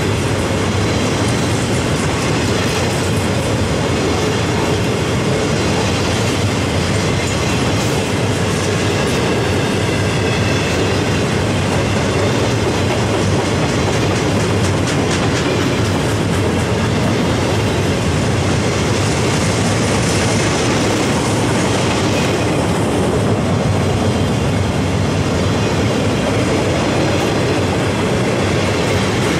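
A loaded rail train's flatcars, stacked with welded rail, rolling steadily past. Their steel wheels make a continuous loud rumble on the track, with light clicking over the rail joints.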